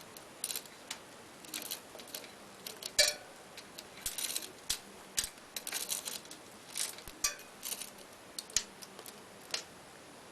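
New Shimano 9-speed bicycle chain clinking and rattling in short, irregular clicks as it is fed through the rear derailleur's pulley wheels.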